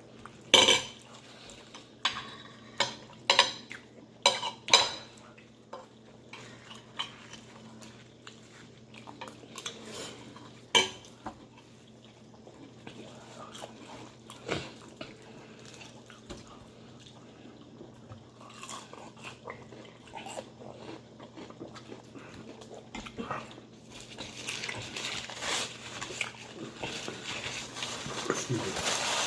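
Eating sounds at a table: sharp clinks and knocks of cutlery and dishes in the first few seconds, then sparser small ticks of chewing and handling deep-fried turkey wings, with a denser hissing noise near the end.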